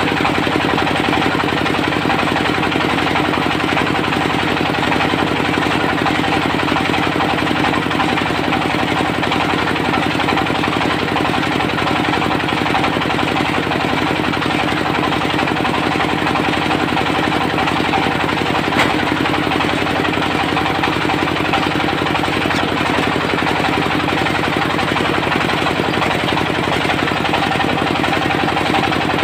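Diesel engine of a portable circular sawmill running steadily at a constant speed.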